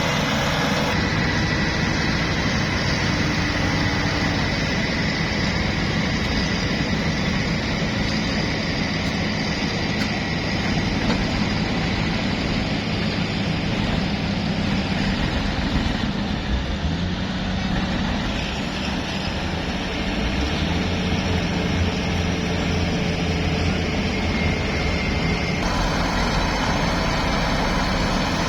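Diesel engine of heavy earthmoving machinery running steadily, with a thin high whine over the low engine sound. The sound changes abruptly a few times, about a second in, around the middle and near the end.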